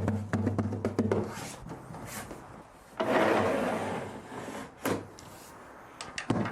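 Plywood-and-2x4 workbench on casters being handled and moved: clicks and knocks, then a rubbing, rolling noise about three seconds in that lasts almost two seconds, with a few more knocks near the end.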